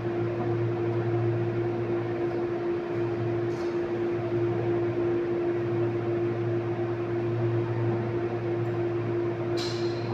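A steady machine hum with one constant tone and a lower drone under it, unchanging throughout, with a brief hiss near the end.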